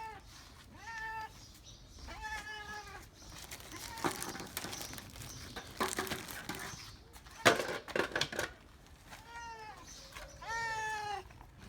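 A cat meowing: two meows in the first three seconds and two more near the end, each rising and falling in pitch. In between come scattered clicks and knocks, the loudest about seven and a half seconds in.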